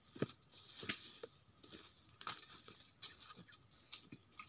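A steady high-pitched insect drone, with scattered crackles and snaps of footsteps on dry palm fronds and leaf litter.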